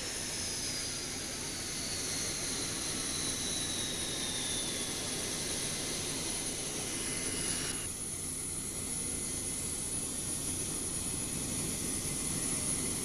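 Prototype McDonnell F-15 Eagle's twin Pratt & Whitney F100 turbofans running at taxi power: a steady jet rush with a whine that falls slowly in pitch. The sound changes abruptly about eight seconds in.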